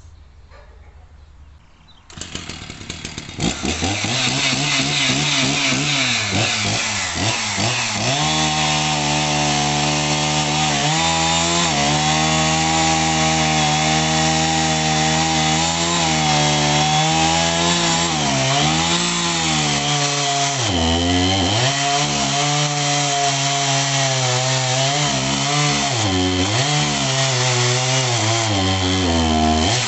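Two-stroke chainsaw at high revs, cutting eucalyptus logs into firewood. The engine pitch sags under load and picks up again several times. The saw comes in about two seconds in.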